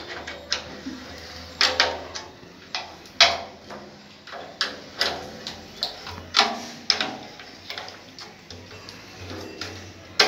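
Irregular metallic clicks and knocks of a spanner working the tension bolts on a thappattai frame drum, several of the knocks ringing briefly through the drum.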